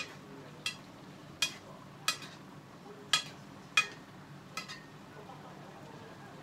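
A cooking utensil knocking against the pot about seven times, roughly every 0.7 s, with a slight metallic ring, while a simmering meat-and-potato stew is stirred.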